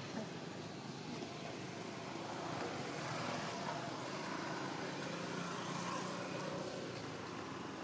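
A distant engine drones steadily under a background hiss, a little louder in the middle.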